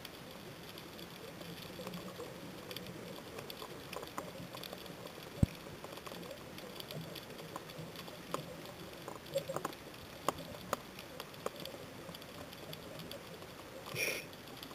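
Underwater reef ambience heard through a camera housing: a faint steady hiss with scattered crackling clicks and one sharp click about five seconds in. Near the end comes a short gurgling rush of a scuba diver's exhaled regulator bubbles.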